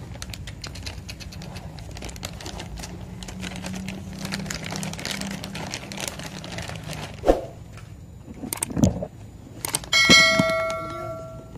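Subscribe-button animation sound effect: a mouse click followed by a bell-like notification chime that rings for about a second and a half near the end. Before it, a steady low background rumble and a couple of thumps as the camera is moved.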